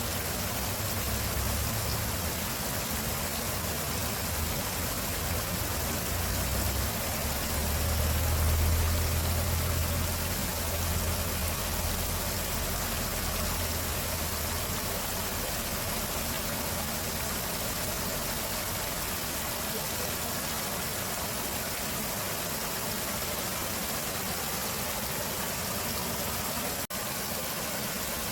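Stream water running steadily. A low rumble swells under it in the first half, loudest about nine seconds in, then fades away.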